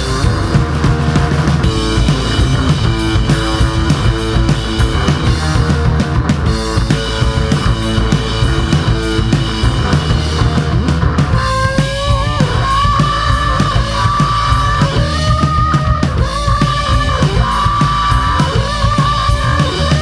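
Rock music with guitars and a drum kit playing steadily. About halfway through, a high lead melody line with bends enters on top.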